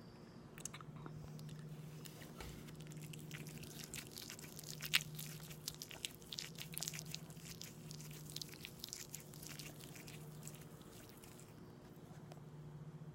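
Close-miked chewing of aloe vera: a run of wet, sticky mouth clicks and smacks, densest and loudest in the middle and tailing off near the end, over a steady low hum.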